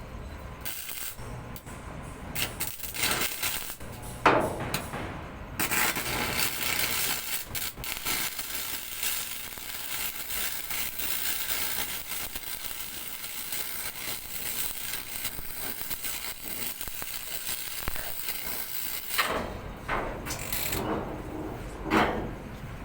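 Welding: a steady crackling hiss from about five seconds in until a few seconds before the end, with sharp metal knocks and clicks before and after it.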